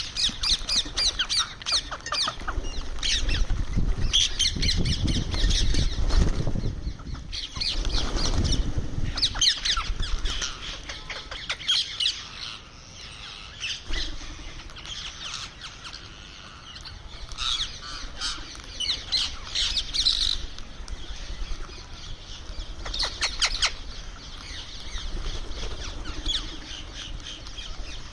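Indian ringneck parakeet squawking in repeated bursts of harsh, high chatter, with short pauses between bursts. A low rumble runs under the calls through roughly the first third.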